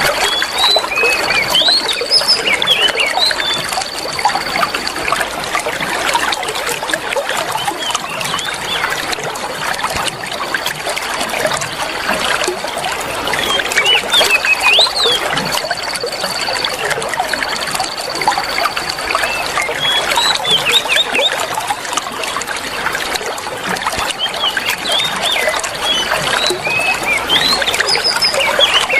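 Oriental magpie-robin (kacer) chirping and whistling over a constant sound of trickling water. The song comes in clusters with a long, steady high whistle, and the same pattern recurs about every 13 seconds, as in a looped therapy recording.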